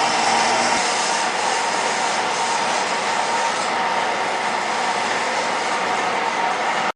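Metal-cutting bandsaw running and cutting through steel tubing: a steady, loud grinding whir with a strong ringing tone, which cuts off abruptly near the end.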